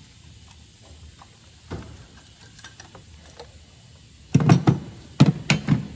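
A 17mm spanner and a steel high-pressure diesel fuel pipe clinking against the engine as the pipe is undone and lifted off. There are a few light clicks and a single knock, then a quick clatter of sharp metallic knocks about four seconds in.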